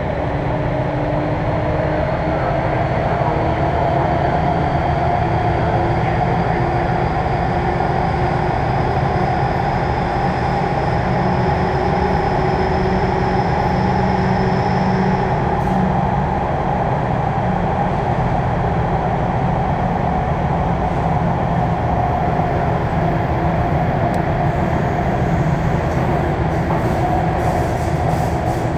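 Sotetsu New 7000 series electric train running, heard from above its VVVF inverter. A high inverter whine rises slowly as the train accelerates, then stops about halfway through, leaving the steady rumble of wheels and motors.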